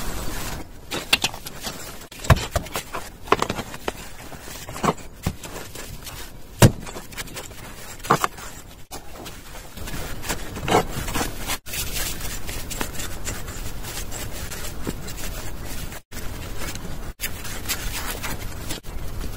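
Gloved hands pressing and smoothing wet cement mortar onto a cement-soaked knitted hat: wet scraping and rubbing with scattered, irregular soft knocks.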